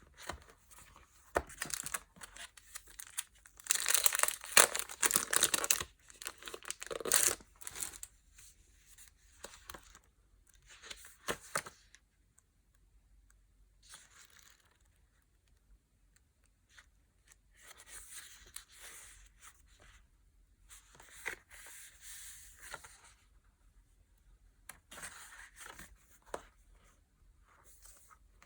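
Packaging being crinkled and torn open by hand, in irregular rustling bursts with short pauses between. The loudest burst comes a few seconds in, and there is a quiet stretch around the middle.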